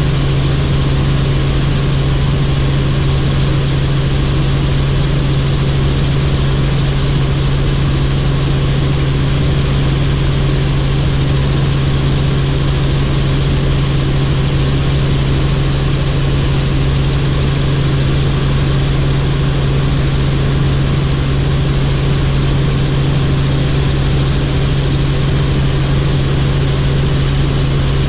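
Helicopter in flight: the steady, loud drone of engine and rotors, with a strong low hum at one unchanging pitch.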